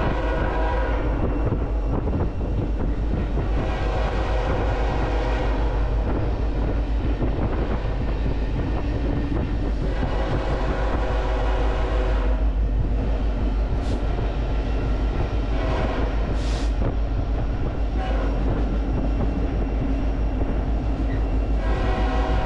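BNSF freight locomotive running with a steady low rumble, its horn sounding in repeated blasts: long ones a few seconds in and about ten seconds in, a shorter one around sixteen seconds, and another long one near the end.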